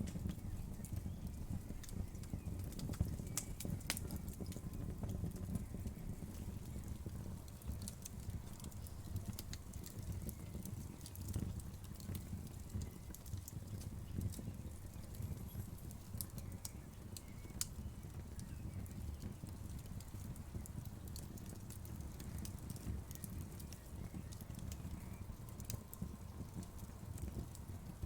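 Wood fire crackling: irregular sharp pops and snaps scattered over a steady low rumble.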